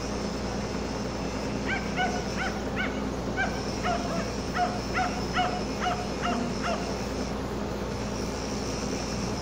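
An animal calling about a dozen times in quick succession, short harsh calls at two to three a second that stop about two thirds of the way in, over a steady low machinery hum.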